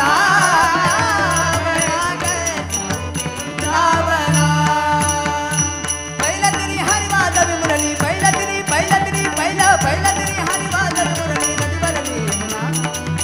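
Devotional bhajan music: a wavering melody line over a hand drum and jingling cymbals keeping a steady rhythm.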